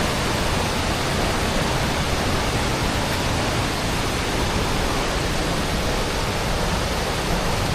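Waterfall in heavy flow: a steady rushing of falling water.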